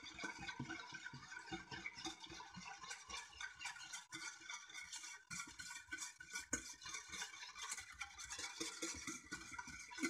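Wire whisk beating a soy-sauce, dashi and sugar liquid in an aluminium saucepan, rapid scraping strokes on the metal bottom. The shari-shari grit of sugar not yet dissolved is in it.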